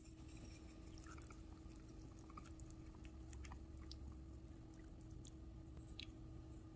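Faint clicks and small liquid sounds of chopsticks stirring udon broth in a bowl, over a faint steady hum.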